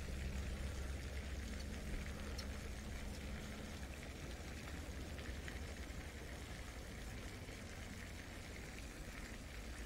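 Steady outdoor noise, a faint water-like hiss over a low rumble that eases about four seconds in.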